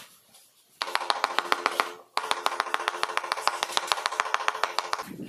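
Rapid light tapping on a freshly laid floor tile with the end of a wooden tool handle, bedding the tile into its adhesive: about ten knocks a second, in a run of about a second, a short break, then about three seconds more, with a ringing tone under the taps.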